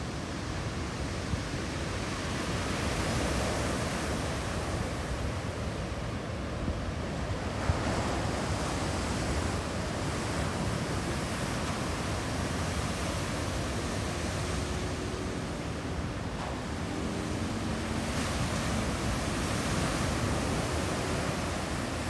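Ocean surf breaking and washing up onto a sandy beach: a continuous rush of waves that swells louder every several seconds as the breakers come in.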